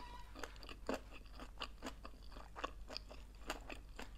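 Chewing a vegetarian sushi roll with finely cut takuan (pickled daikon) and spicy sauce: a string of small, irregular clicks and light crunches from the mouth, a few each second.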